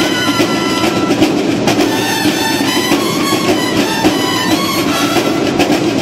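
Loud music with drums keeping a steady beat.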